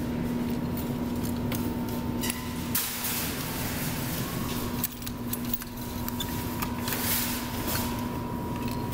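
Claw crane machine running with a steady electrical hum and held tone, with scattered clicks and rattles as the claw is worked.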